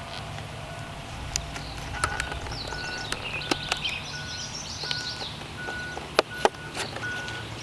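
A vehicle's reversing beeper sounding at an even pace, about one and a half beeps a second, over a low rumble. A bird chatters in the middle, and there are a few sharp clicks and knocks, the loudest a pair near the end.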